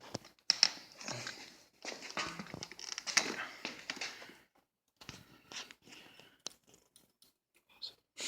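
Hands working on a motorcycle brake lever with tools: a dense run of irregular clicks, scrapes and rustling for about four seconds, then a few scattered clicks.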